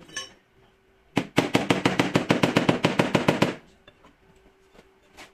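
A power tool rattling in a rapid run of sharp, even blows, about nine a second, for a little over two seconds, working at the car's rear wheel arch.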